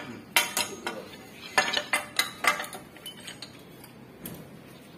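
Large pipe wrenches clanking on a metal deep-well pipe as it is gripped and turned. A quick string of sharp metallic clinks and knocks, most of them in the first three seconds, with only a few light ticks after.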